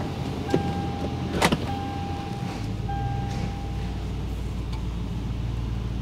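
2005 Toyota Land Cruiser's 4.7-litre V8 running as the SUV creeps forward at low speed, giving a low rumbling noise almost like a loud exhaust system. The rumble grows deeper and stronger about two and a half seconds in. A sharp click comes about a second and a half in.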